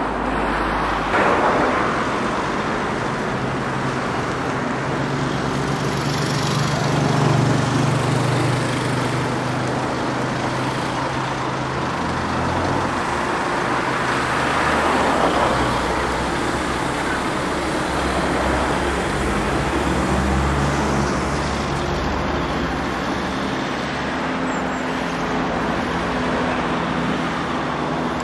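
Articulated tram rounding a turning loop at low speed: a steady running rumble with a low motor hum.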